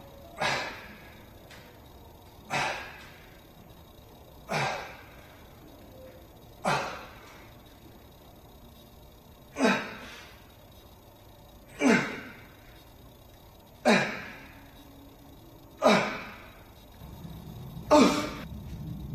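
A man's short, forceful exhaled grunts, one with each lift: nine breaths that fall in pitch, about one every two seconds, with a longer pause after the fourth.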